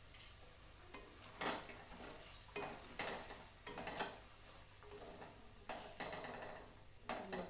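Wooden spatula stirring paneer cubes and peas in a kadhai of hot ghee, scraping and knocking against the pan several times over a light sizzle.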